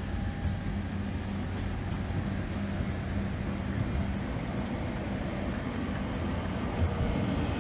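Steady low rumble of an airliner cabin with a constant hum running under it, inside a Boeing 767-300 on the ground after landing.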